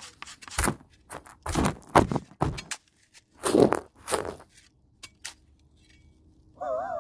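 Rough scraping and brushing of dirt right against the microphone, in several uneven strokes over the first four seconds, then quieter.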